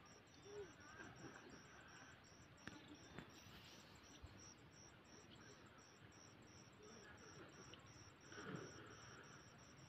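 Faint cricket chirping in an even, steady pulse of about four chirps a second.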